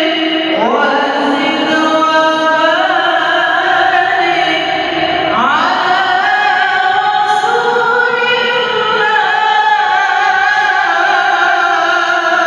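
A young girl's voice reciting the Quran in melodic tilawah style, holding long sustained notes with ornamented wavering. Sweeping rises into new phrases come about half a second in and again near the middle.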